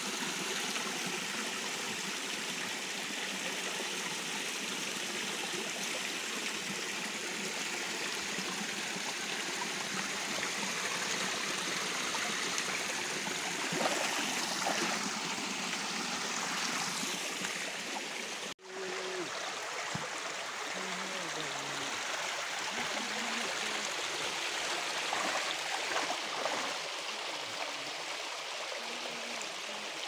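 Shallow stream rushing over rocks: a steady wash of running water, broken off for an instant about two-thirds of the way through.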